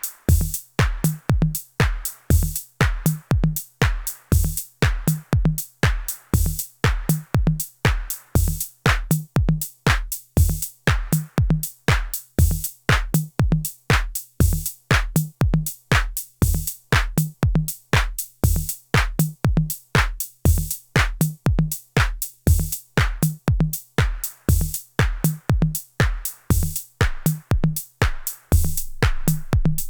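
IK Multimedia UNO Drum, a hybrid analog/PCM drum machine, playing a steady electronic beat: a kick about twice a second with crisp hi-hat and snare hits between. Near the end the gaps between hits fill in as the pattern changes.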